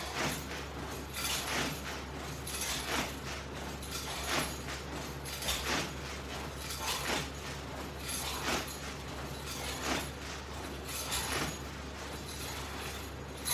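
Rhythmic sit-up crunch repetitions with a Latch Bar resistance strap, a short rustling, lightly clinking stroke about every second and a half over a steady low hum.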